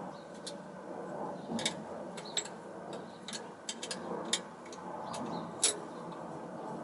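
Spanner clicking and clinking on the 8 mm nuts of a vacuum cleaner motor as they are undone by hand: about ten sharp, irregular metal ticks over a low rustle of handling, the loudest just before the end.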